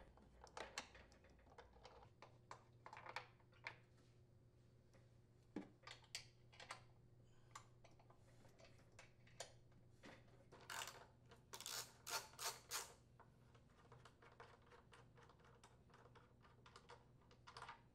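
Faint, irregular clicks and taps of a 3/8-inch socket wrench working the blower housing mounting bolts on a Briggs & Stratton lawn mower engine, with a denser run of clicks a little past the middle.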